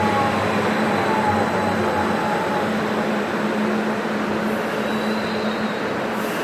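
Stuttgart Stadtbahn light-rail train running at the platform: a steady rail rumble with a low hum, and a faint whine that falls in pitch over the first couple of seconds.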